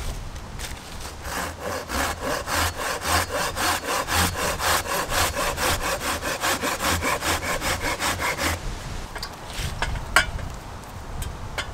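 A folding hand saw cutting through a wooden peg, in rapid, even back-and-forth strokes that start about a second in and stop after about eight seconds. A single sharp click follows near the end.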